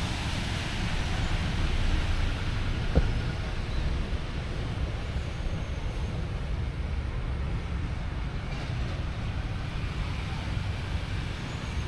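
Steady outdoor background noise, mostly a low rumble with wind on the microphone, with one short knock about three seconds in.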